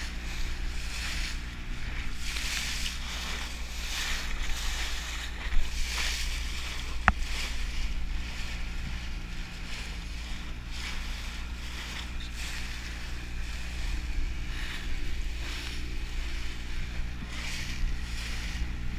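Outboard motor running steadily as a rigid inflatable boat speeds over choppy sea, with spray hissing and the hull slapping the waves. Two sharp knocks come about six and seven seconds in.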